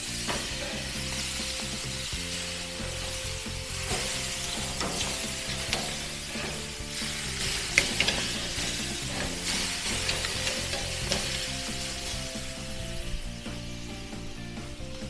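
T-bone steaks sizzling on the hot grates of a gas grill, a steady hiss, while metal tongs turn and shift them with clicks and scrapes on the grate. The sharpest click comes about eight seconds in.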